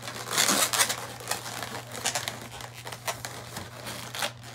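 Latex modelling balloons rubbing and crinkling against each other as a green balloon is twisted around a yellow balloon body. A dense burst of rubbing comes about half a second in, followed by scattered short crackles.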